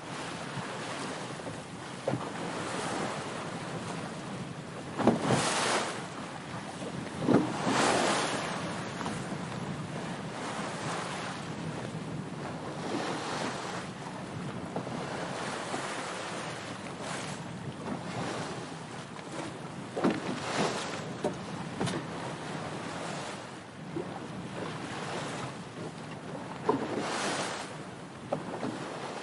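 Water rushing and splashing against a boat's hull under way, with wind noise on the microphone. A few heavier splashes stand out above the steady wash, about five, seven, twenty and twenty-seven seconds in.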